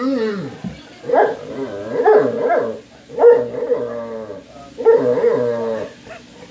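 A large dog giving four long, wavering, pitched whine-howls in a row, 'talking' to its owner to ask for food because it is hungry.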